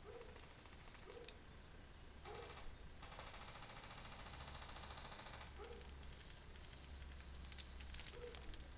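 Faint rattle of airsoft guns firing on full auto: a short burst about two seconds in, then a longer burst of fast, evenly spaced shots lasting over two seconds. Near the end comes a cluster of sharp clicks and snaps.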